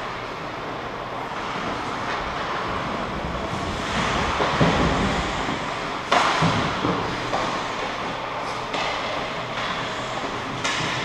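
Ice hockey game noise in a large indoor rink: a steady din of skates and play, swelling about four seconds in, with a sharp knock about six seconds in and another near the end.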